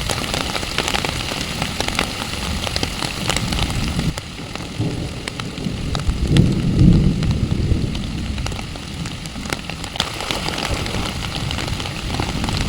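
Heavy rain falling, with many sharp drop hits close to the microphone. A low rumble swells about six seconds in and fades a second or so later.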